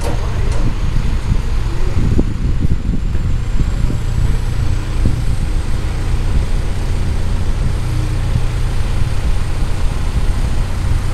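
Mobile truck crane's diesel engine running steadily while the crane hoists a load, a continuous low rumble.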